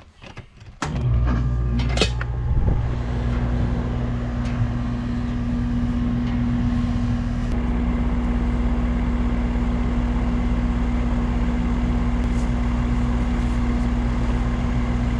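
A machine starts suddenly about a second in with a few sharp clicks, then runs steadily with a low, even hum.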